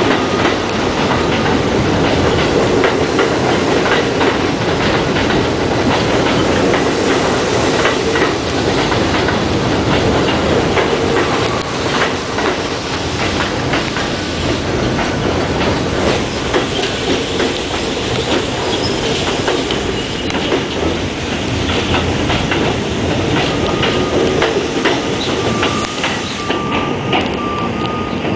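New York City Subway train pulling out along an elevated curved track, wheels clattering over the rail joints with some wheel squeal. Near the end a thin steady whine comes in as another train approaches.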